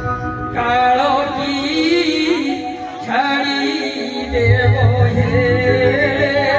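A voice singing a devotional stage song with vibrato over musical accompaniment, with a short break near the middle; a low pulsing beat comes in about four seconds in.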